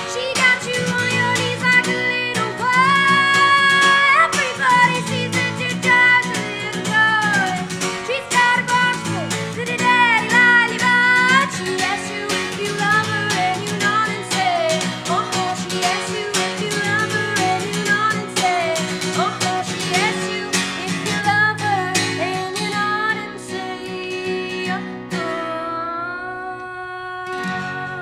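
A woman singing with her own strummed acoustic guitar. Near the end she holds one long note and the song finishes.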